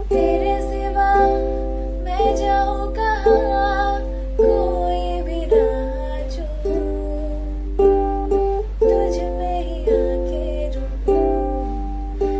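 Strummed chords on a plucked acoustic string instrument, a chord roughly every second left to ring, with a wavering melody line above. A steady low hum lies underneath.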